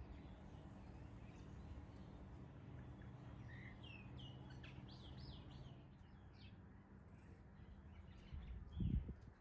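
Small birds chirping faintly, a quick run of short calls in the middle, over a steady low outdoor rumble. A brief low thump near the end.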